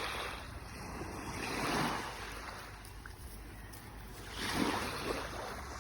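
Sea waves washing onto the shore, swelling and falling back twice, with wind rumbling on the microphone.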